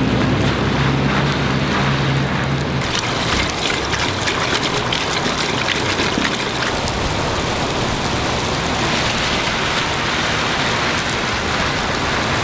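Heavy rain falling on wet pavement, with water pouring from a drainpipe outlet. A low steady drone underneath stops about three seconds in, leaving the rain and running water.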